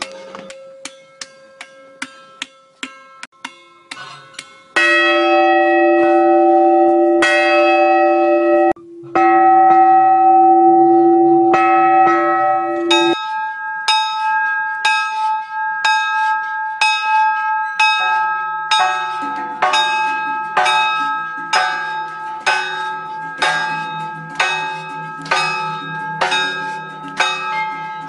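Bells of a bell-tower peace monument being struck again and again: light, quick strikes first, then louder, longer-ringing bells from about five seconds in, and from about thirteen seconds a steady run of strikes, roughly two a second, on several bells of different pitch.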